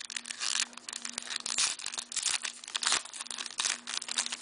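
Plastic hockey-card pack wrapper crinkling and tearing as it is pulled open by hand, a dense run of crackles with a few sharper bursts.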